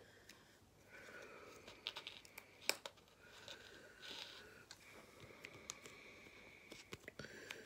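Faint crinkling and small clicks of a foil face-mask sachet being handled and pulled at by the fingers, trying to tear it open, with one sharper click about a third of the way in.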